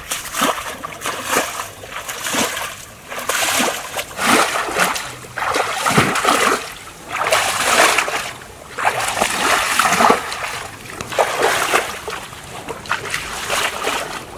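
Feet wading through shallow, muddy pond water, each stride splashing and sloshing in a steady walking rhythm of about one step a second.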